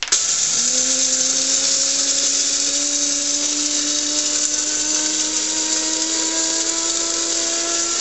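The built-in bean grinder of a Delta grind-and-brew coffee machine grinding coffee beans: a loud, steady electric grinding whir that starts abruptly, its pitch rising slowly as it runs.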